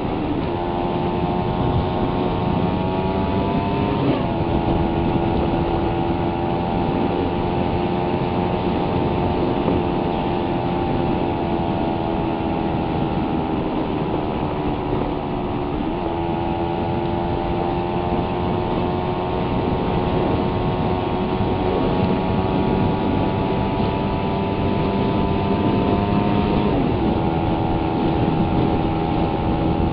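Suzuki Raider 150's single-cylinder four-stroke engine running steadily under way, with road and wind noise beneath. The engine note breaks and resettles sharply three times: about four seconds in, around sixteen seconds and near twenty-seven seconds.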